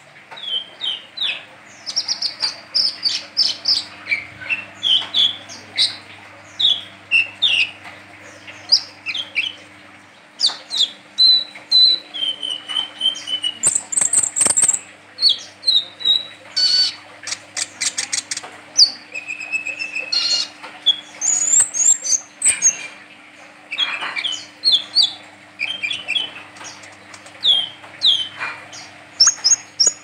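Male Van Hasselt's sunbird (kolibri ninja) singing vigorously: a rapid run of short, sharp, high chirps and twitters, with a quick burst of fast ticking notes about halfway through.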